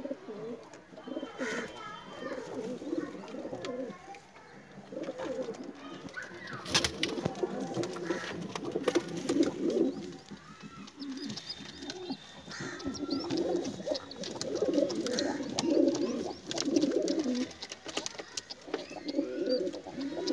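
Domestic pigeons cooing repeatedly in the loft, in low phrases every second or two. A sharp knock about seven seconds in, with scattered lighter clicks and faint high chirps later on.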